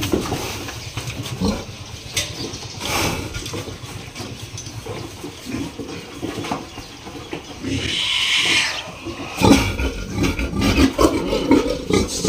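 Large White sow grunting in short bursts, more often in the last few seconds, while it is injected in the neck in a steel crate. A breathy hiss comes about eight seconds in, and there are scattered knocks.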